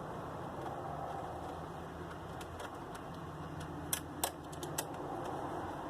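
Screwdriver working the screws out of a DVD player's metal casing: scattered sharp little metallic clicks and taps, a few close together near the middle, over a steady low background noise.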